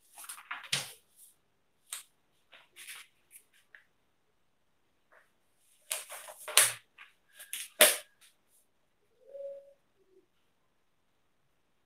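Sheets of paper rustling and crackling as they are handled and leafed through, in a series of short crisp bursts, loudest about six to eight seconds in.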